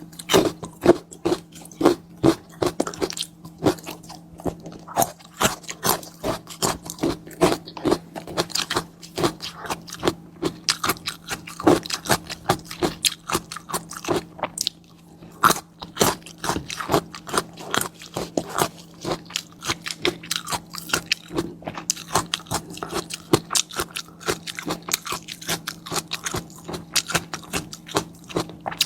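Close-miked eating: chewing and biting food, with a dense run of sharp wet crackles and clicks, several a second.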